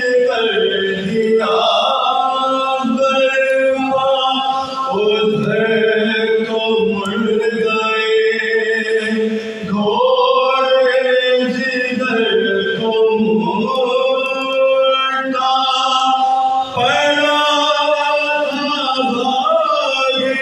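A group of men chanting a soz, a Shia mourning lament, unaccompanied, with a lead voice and others singing along. The notes are held long and then slide to the next pitch between phrases.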